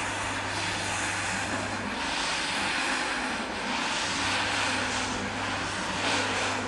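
Rotary floor scrubber running steadily, its motor drone mixed with the hiss of the spinning brush working through soapy foam on a wet rug.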